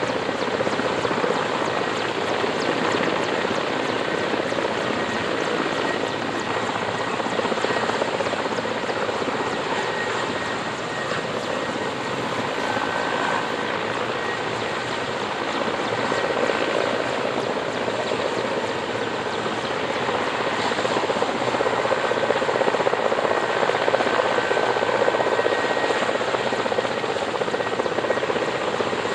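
Mil Mi-8-family military transport helicopter hovering close by: steady rotor and turbine noise with a faint high whine, growing a little louder near the end.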